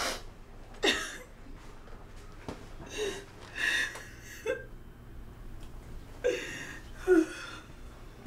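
A woman crying: short sobs, sniffs and gasping breaths, about seven of them, each brief, some with a short wavering voiced cry.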